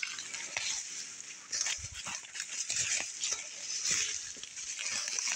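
Rustling and crackling of brush and leaves as someone pushes on foot through dense undergrowth, with small twig snaps and leaves brushing past the camera.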